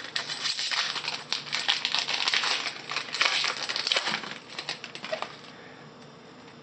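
Foil wrapper of a trading-card pack crinkling and crackling as it is torn open by hand, stopping about five and a half seconds in.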